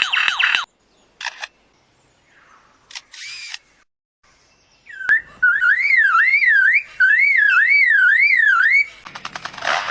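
Lyrebird mimicking man-made sounds: a few short clicks and bursts like camera shutters, then a loud clear whistle sweeping up and down about three times a second for some four seconds, like an electronic alarm. A rough burst of noise follows near the end.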